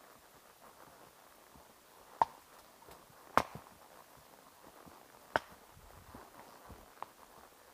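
Horse walking on a trail: four sharp, separate hoof strikes at uneven spacing, over faint, steady background noise.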